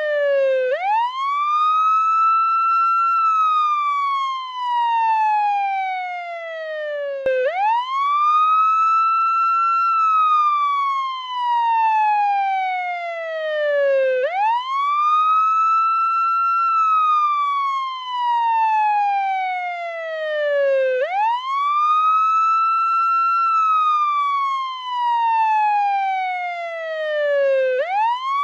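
Portuguese ambulance wail siren. Each cycle sweeps quickly up in pitch, holds briefly at the top, then falls slowly for about four seconds, repeating roughly every seven seconds.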